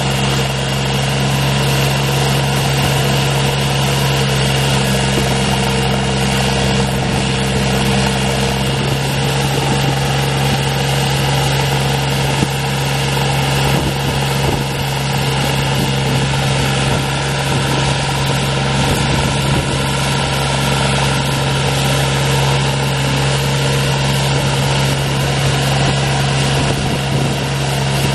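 Ditch Witch 3700 trencher's engine running steadily, with a second, slightly higher hum dropping out about nine seconds in.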